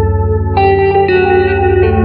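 Background music: sustained notes over a steady low drone, with new notes coming in about half a second in and again at one second.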